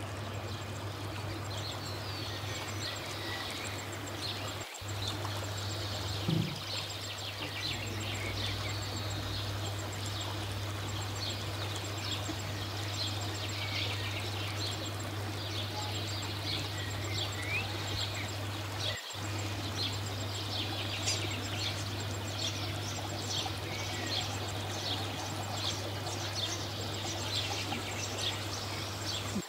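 Ambience of a steady low hum with many small birds chirping busily over it. The sound drops out briefly twice, about five seconds in and again near the middle, and there is a short low thump just after the first dropout.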